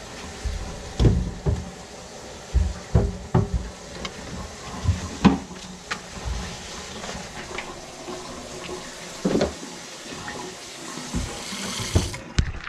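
Tap water running into a stainless steel kitchen sink and down its drain. About eight sharp knocks and clunks are scattered through it as a pipe wrench is handled in the cabinet under the sink.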